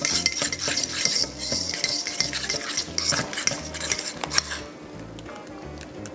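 A fork scraping and clicking against a stainless steel bowl as it mixes egg yolks, grated pecorino and black pepper into a thick paste. The scraping eases off about four and a half seconds in.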